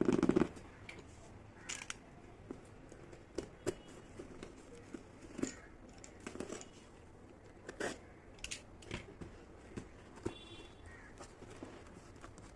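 Toy packaging and small plastic kitchen pieces being handled for unboxing: scattered sharp clicks, taps and light scrapes at an uneven pace, with a louder knock right at the start.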